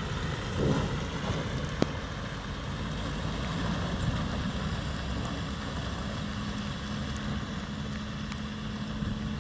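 Heavy container truck's engine running at low speed as it pulls away, a continuous low rumble with a faint steady hum in the second half. A single sharp click about two seconds in.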